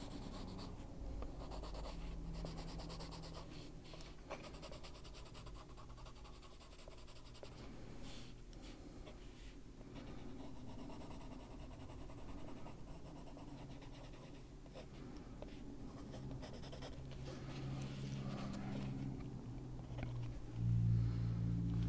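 Coloured pencil scratching over the paper of a colouring-book page in short, repeated shading strokes. A low steady hum comes in near the end.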